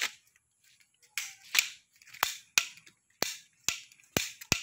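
Plastic toy pistol clicking as its trigger is pulled again and again: about eight sharp clicks, roughly half a second apart.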